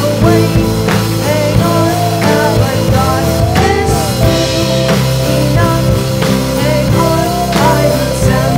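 Indie rock music with a steady drum-kit beat under a melody that glides up and down in pitch.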